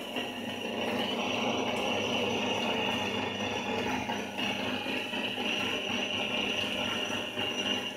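Motor-driven meat-grinder-type feed pellet mill running steadily, a continuous hum with a rattling mechanical texture.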